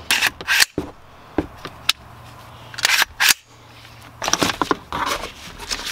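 Metallic clicks and clacks of a Troy A4 9mm carbine's parts being worked by hand. There are a few sharp clicks in the first two seconds, a pair about three seconds in, and a quick run of clacks near the end.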